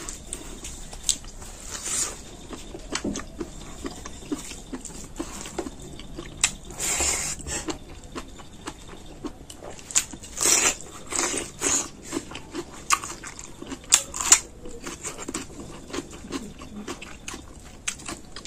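Close-up eating sounds: a mouth chewing raw cabbage leaves with chicken curry and rice, with many short wet clicks and a few louder crunching bursts.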